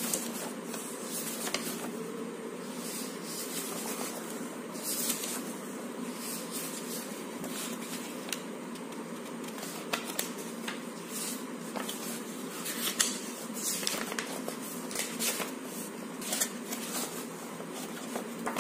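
Pencil sketching on paper: short, irregular scratchy strokes over a steady background hum.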